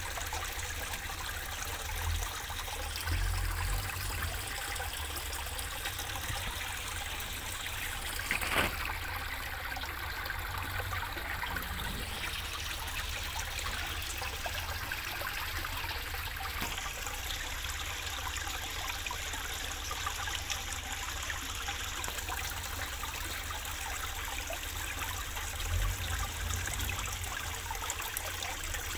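Water trickling and splashing steadily into a small fish pond, with a low rumble underneath that swells twice and a single sharp click about eight and a half seconds in.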